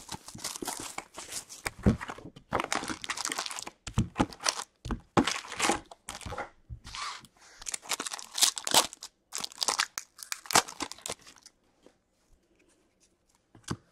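Upper Deck hockey card packs being torn open by hand: repeated tearing and crinkling of the foil wrappers in irregular bursts, stopping near the end.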